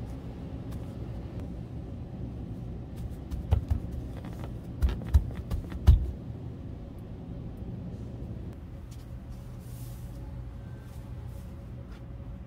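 Steady low hum with a handful of dull thumps, close together between about three and a half and six seconds in, as a gold leaf sheet is handled and pressed on the work table.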